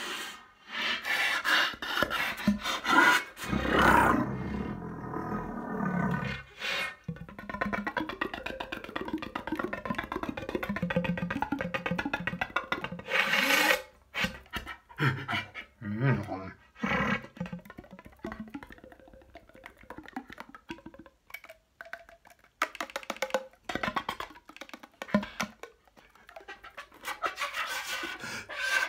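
A soprano flute played partly taken apart, giving breathy, noisy blown sounds with pitched tones in them. A short hard blast of air comes about halfway through, and sharp clicks are scattered through the second half.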